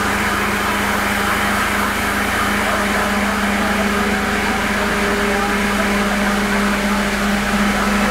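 Fire truck engine running steadily with a constant drone, driving its pump to feed the hoses.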